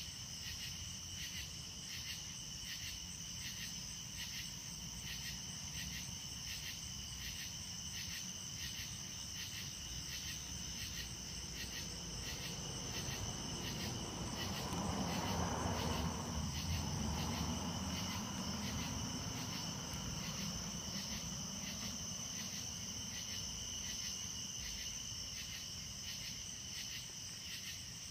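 Crickets chirping in a steady, evenly pulsed chorus. About halfway through, a low rumbling noise swells for several seconds and then fades under the chirping.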